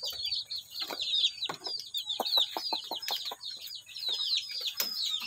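Native chickens in a coop: chicks peeping without a break in a stream of short, high, falling notes, while a hen gives short clucks, with a quick run of them about two seconds in.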